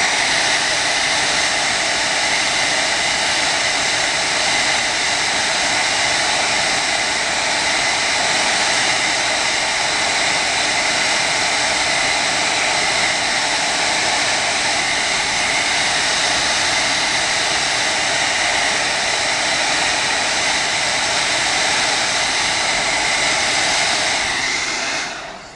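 Handheld hair dryer blowing steadily, a loud even rush with a faint steady whine, heating the phone's glass to soften the adhesive holding the home-button ribbon. It switches off just before the end.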